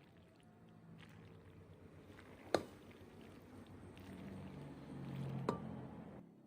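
Quiet kitchen mixing sounds, soft and wet, with two sharp clinks, one about two and a half seconds in and one near the end. The sound drops away abruptly just before the end.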